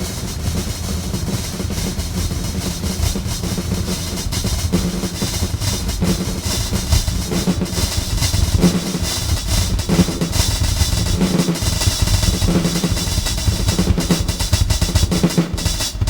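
Instrumental music from a rap track with no vocals: a drum kit, with kick and snare drums, keeps up a busy beat over a steady low bass.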